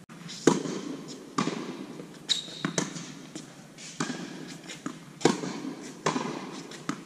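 Tennis balls struck by racquets and bouncing on an indoor hard court during a baseline rally, a sharp pop every second or so, each echoing in the large hall. A brief high squeak a little over two seconds in.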